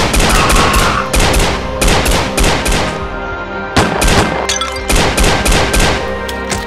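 Rapid pistol gunfire, many shots in quick succession over music, with a short lull a little past halfway before the firing resumes.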